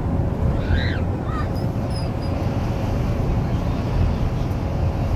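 Steady low rumble of a train. About a second in, two short harsh calls fall in pitch.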